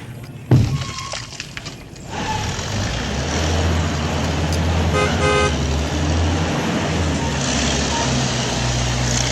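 A motor vehicle's engine running steadily, with two short horn toots about five seconds in. A sharp knock comes about half a second in.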